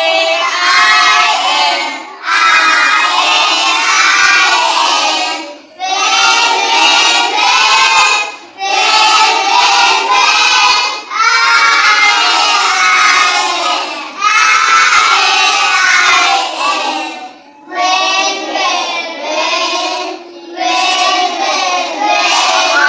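A group of young children singing together in phrases of about two to three seconds, with short breaks between them.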